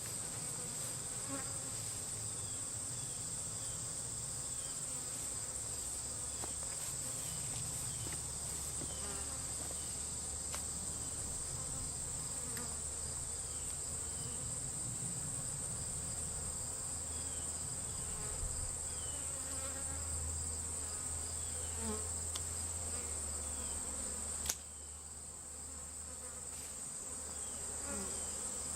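Steady high-pitched insect trill with the low buzz of honey bees from a swarm. A sharp click about 24 seconds in, after which everything drops quieter for a few seconds.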